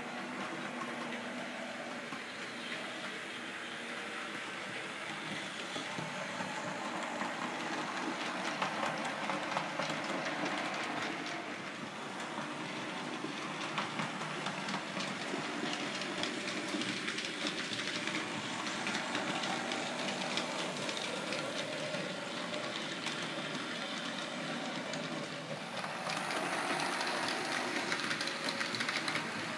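HO-scale model train running on its track: a steady running whirr with fast, fine clicking of the wheels on the rails. It gets louder near the end as the train comes past close by.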